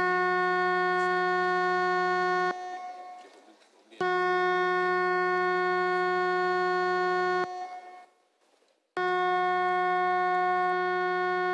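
Parliament chamber's electric division buzzer sounding in long steady blasts to call members in for a vote. Three long blasts of about three seconds each, with short gaps between them; the last cuts off suddenly.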